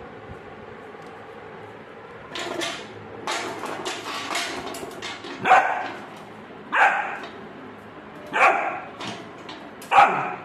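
Rottweiler puppy barking at an overturned metal bucket: a few softer calls start about two seconds in, then four loud single barks come about a second and a half apart. A faint steady hum sits underneath.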